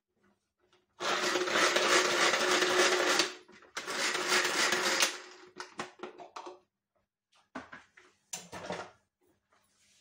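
Tupperware Turbo Chef pull-cord chopper mincing a garlic clove: two runs of whirring and rattling as the blades spin, about two seconds and a second and a half long. Scattered clicks and taps follow as the chopper is handled.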